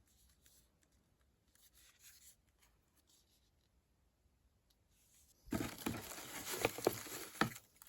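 Packaging being handled: a rustling, tearing noise of paper or plastic for about two seconds near the end, after a few seconds of faint room sound.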